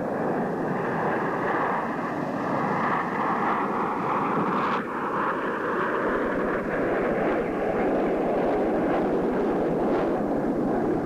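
Single-turbojet Canadair CT-114 Tutor jets flying by in formation: a steady jet roar with a whine that falls in pitch over the first few seconds, then levels off and rises slightly.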